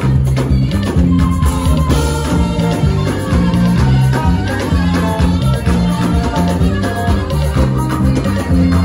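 Live band playing an African praise groove: a drum kit with cymbals driving a busy beat over keyboard and a moving bass line.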